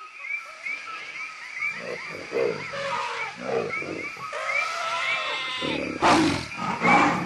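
Cartoon jungle animal sound effects: a repeating high chirping call, about three a second, over growls and roars that build up and are loudest about six seconds in.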